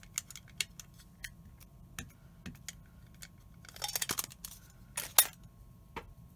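Light clicks and taps of a clear acrylic stamp block with a clear rubber-free stamp on it being picked up and handled on a cutting mat. A short rustle of handling comes about four seconds in, then one sharp click, the loudest, just after five seconds.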